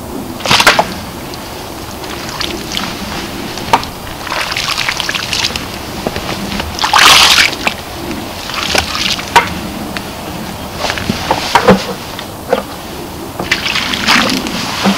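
Bear-bait oil sloshing and splashing out of a plastic bucket onto the forest floor in several irregular pours, with a few sharp clicks and knocks.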